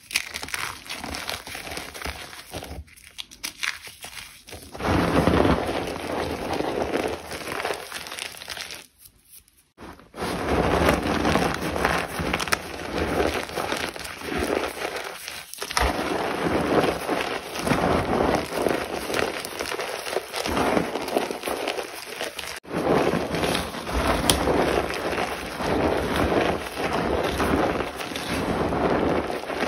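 A dry, crumbly material being crushed and crumbled: dense, crackly crunching. It comes in several short clips that start and stop abruptly, with a brief near-silent gap about nine seconds in.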